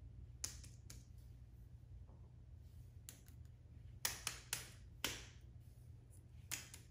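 Small plastic and rubber fidget toys being set down and handled on a foam board: scattered light taps and clicks, with a quick cluster of them about four to five seconds in and two more near the end, over a faint low hum.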